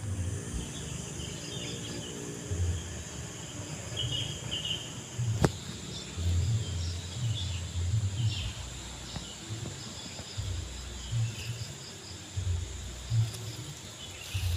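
Outdoor ambience: a steady insect buzz with scattered short bird or insect chirps. Intermittent low rumbles sound on the microphone, and there is one sharp click about five seconds in.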